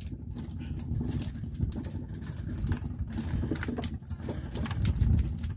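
A fishing boat's engine running steadily at low idle, with scattered light clicks.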